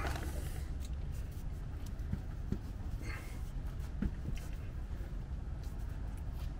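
Steady low background hum with a few faint, light knocks of a driveshaft being gripped and moved by hand beside the transfer case.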